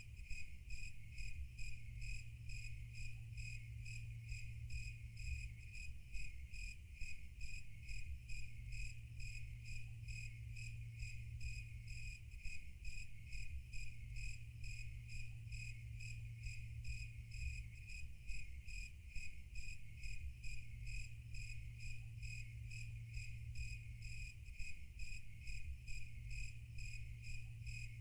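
Crickets chirping in a steady, even rhythm, several chirps a second, over a low steady hum.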